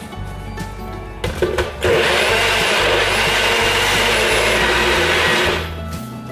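NutriBullet personal blender running, blending frozen banana, milk and protein powder into a shake: a brief pulse, then a steady whir of about three and a half seconds that stops near the end.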